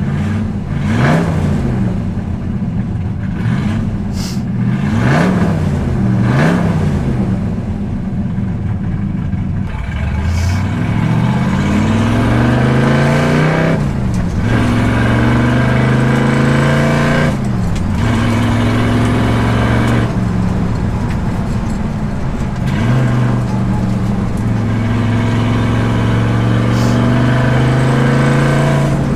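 1965 Shelby GT350's high-performance 289 V8 exhaust heard from inside the car while driving. It is revved up and down several times, then pulls hard, and the engine note drops sharply at two upshifts of the four-speed manual. It then settles into a steady cruise.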